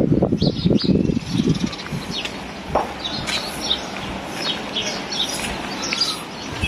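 Small birds chirping repeatedly in short high notes. A loud, uneven low rumble fills the first second and a half, then drops away.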